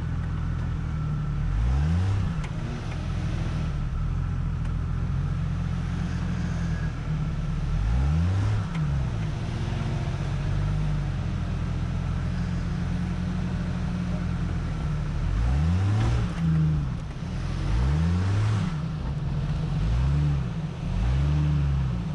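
Off-road Jeep's engine running at low speed, revved several times; each rev rises and falls back in pitch.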